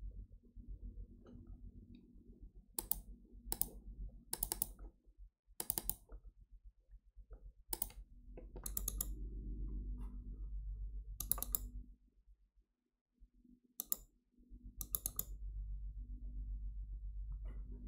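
Computer mouse clicking: a dozen or so scattered clicks, several in quick pairs like double-clicks, over a low hum that comes and goes.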